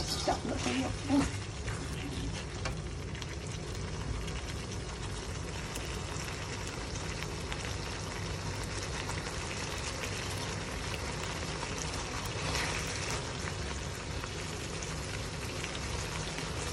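Beef in a thick dark soy-sauce gravy, with green beans, sizzling steadily in a wok. A spatula knocks and scrapes against the pan a few times in the first second or so.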